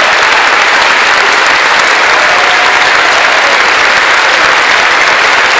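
Large audience applauding, with dense clapping at a steady, loud level throughout.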